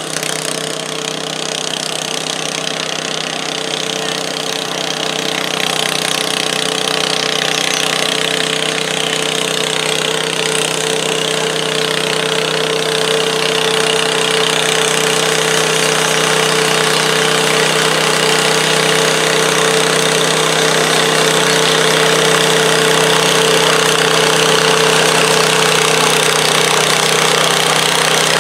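Modified garden tractor engine running hard and steady under load as it drags a stoneboat sled, its pitch holding level while it grows gradually louder.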